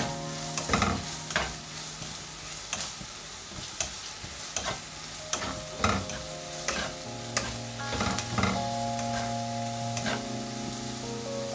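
A spatula stirring and scraping sliced onions around a nonstick frying pan, with irregular scrapes and taps against the pan over the steady sizzle of the onions frying in oil.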